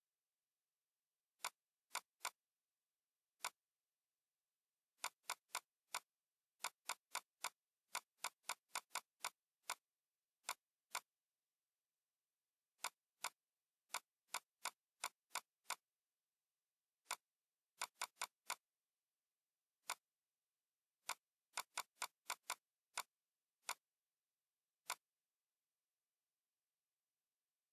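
Computer mouse clicking, sharp single clicks and quick runs of two to five, irregularly spaced, on an otherwise silent track.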